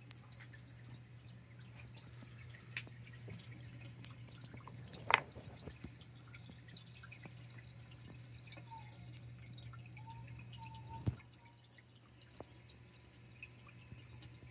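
Small waterfall trickling steadily into a medaka biotope pond, with scattered drips and two louder plops of water about five and eleven seconds in.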